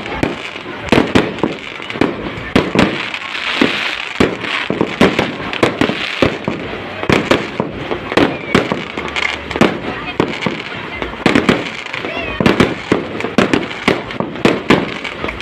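Aerial fireworks bursting in a rapid, irregular string of sharp bangs, several a second, with crackle between them.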